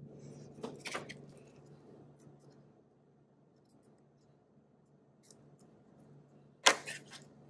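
Metal clicks of snap-ring pliers and a steel snap ring being fitted onto a CV axle shaft. Two small clicks about a second in, then a sharp, loud snap near the end as the ring seats in its groove.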